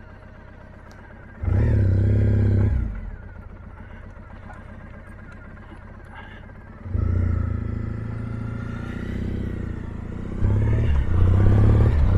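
Triumph T100 parallel-twin motorcycle engine with a sidecar attached, ticking over at idle. It gets a brief blip of throttle about a second and a half in, then pulls away from about seven seconds in, with the revs building again near the end.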